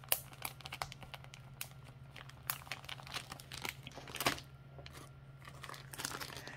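Thin clear plastic zip-top bags of wax melts crinkling and crackling as they are picked up and handled, in scattered short bursts.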